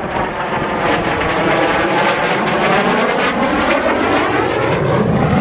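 Hawker Hunter single-engine jet flying past, a loud steady jet noise with a sweeping, phasing sound that bends down and back up, growing a little louder toward the end.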